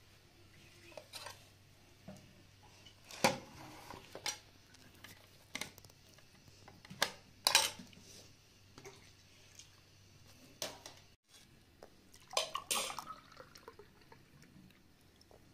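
Scattered clinks and knocks of a metal cooking pot and spoon against a ceramic plate as stuffed grape leaves are served out, with soft wet sounds of the food sliding. The sharpest clinks come about three and seven seconds in, and another cluster a little after twelve seconds.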